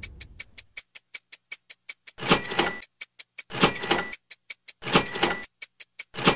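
Fast, even clock-like ticking, about five ticks a second, with a short hissing burst carrying a steady ringing tone about every second and a half. A deep boom dies away in the first second.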